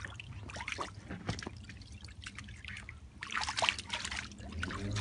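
A puppy's paws splashing in shallow paddling-pool water: scattered small splashes and drips, then a busier burst of splashing a little after three seconds in.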